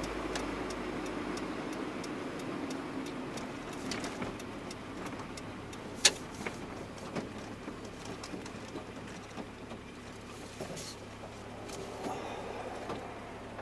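Cab noise of a GAZelle van slowing down to pull off the road: engine and road noise, gradually quieter as it slows. A single sharp knock comes about six seconds in, then a regular light ticking of the turn signal.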